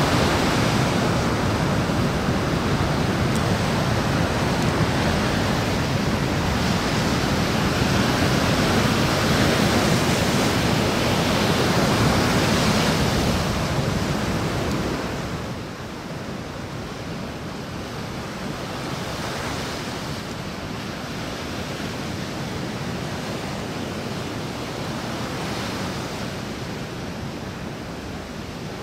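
Sea surf breaking and surging over shoreline rocks: a loud, continuous rush of crashing waves. About halfway through it drops to a quieter, steady wash.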